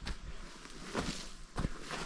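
Footsteps of a person walking, about two steps a second, the loudest about one and a half seconds in.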